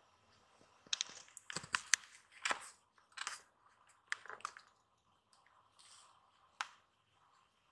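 Kittens scuffling in a plush cat bed: a run of short scratching and rustling sounds of paws and claws on the fabric, clustered from about a second in to the middle, with one more sharp scratch near the end.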